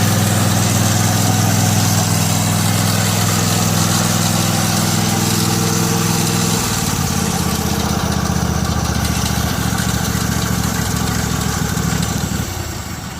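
Husqvarna lawn tractor's 18 hp Kawasaki twin-cylinder engine running steadily. It drops to a lower speed about six and a half seconds in, then fades out near the end.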